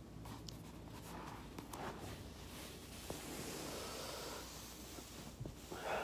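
Soft breathing and rustling of a body shifting on a foam roller, with a few faint clicks and a short louder breath near the end.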